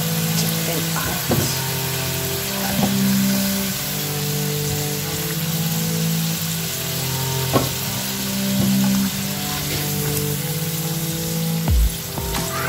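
Whole boiled potatoes deep-frying in hot oil: a steady sizzle, with a few sharp clicks as a slotted spoon turns and lifts them, and a couple of low thumps near the end. Background music plays underneath.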